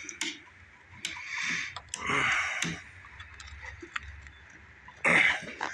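Scattered light clicks and knocks with a few short scraping sounds, from hands and tools working small metal parts loose.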